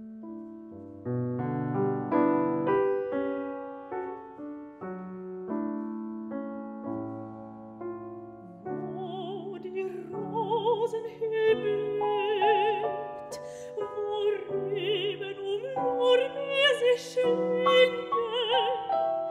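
A C. Bechstein concert grand piano plays a slow, quiet introduction alone. About nine seconds in, a mezzo-soprano enters singing with a wide vibrato, the piano accompanying her.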